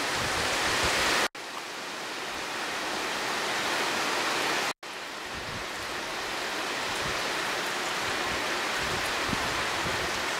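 Heavy rain falling on a lake's surface, a steady hiss that cuts out abruptly twice for an instant.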